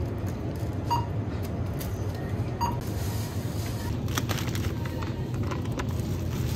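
Two short beeps from a supermarket self-checkout scanner, one about a second in and one near three seconds in. Then crinkly rustling as groceries in plastic packaging go into a woven reusable shopping bag.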